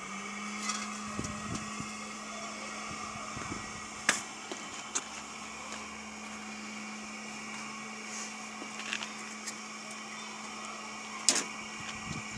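Small electric blower on a gasifier's outlet pipe switched on, running with a steady hum and whir. A few sharp knocks sound about four seconds in and again near the end.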